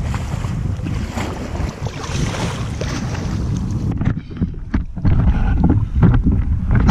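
Wind buffeting the action camera's microphone on a kayak out on the water, with water washing and splashing against the hull. About four seconds in the sound changes to gustier low rumbles broken by short knocks and splashes.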